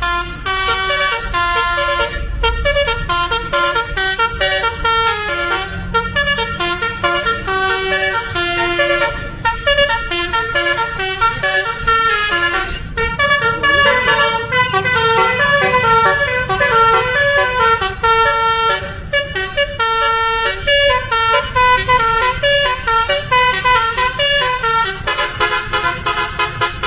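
Multi-tone musical bus horn of the Indonesian telolet kind, playing a long, fast melody of changing notes without pause, over a low engine rumble.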